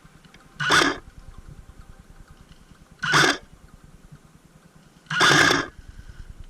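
Airsoft electric rifle firing three short bursts, the last one the longest.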